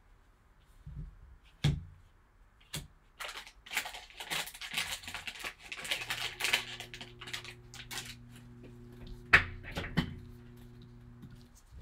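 Foil wrapper of a trading-card pack crinkling and tearing open, followed by a few sharp taps of cards against the tabletop, the loudest near the end. A faint steady low hum sits under the second half.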